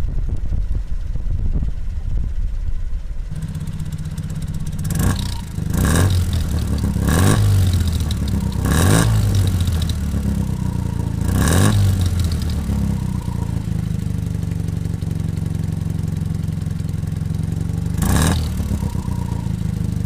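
Honda Life's 360 cc twin-carburettor, water-cooled inline two-cylinder four-stroke engine idling, first at the engine bay and then right at the tailpipe of its somewhat loud one-off exhaust. The throttle is blipped about six times, each rev rising and dropping back to idle.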